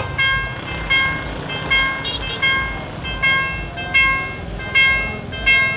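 Railway level-crossing warning bell dinging over and over, about once every three-quarters of a second, the signal that a train is coming and the barriers are coming down.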